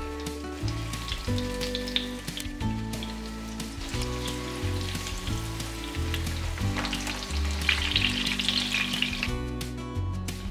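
Breaded pork cutlets sizzling and crackling in hot vegetable oil in a nonstick frying pan while being turned with tongs; the sizzle grows louder about two-thirds of the way in and stops shortly before the end, under background music.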